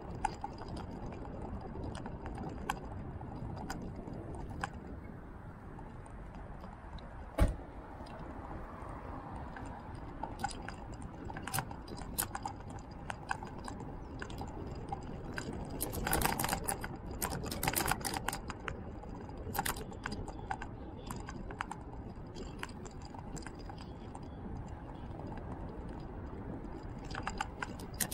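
Ride noise from a camera on a two-wheeler moving along an asphalt road: a steady rush of wind and tyres with irregular light clicks and rattles, a single sharp knock about seven seconds in, and a burst of dense rattling around the middle.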